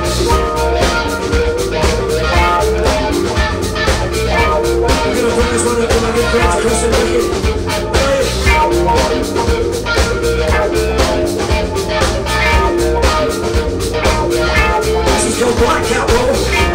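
Live blues-rock band playing: two electric guitars, electric bass and a drum kit keeping a steady beat.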